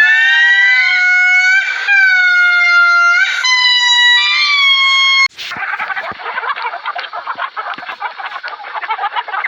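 Three long, steady-pitched animal calls in a row, each about a second and a half, followed from about five seconds in by a dense, continuous chatter of many birds.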